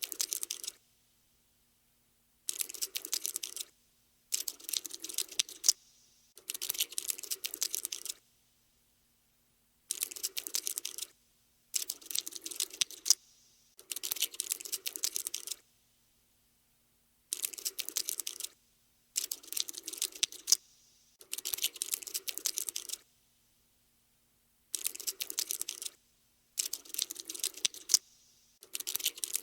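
Skittering sound effect of a cockroach scuttling: rapid dry clicks in bursts of about a second each, stopping and starting a dozen times with short silences between.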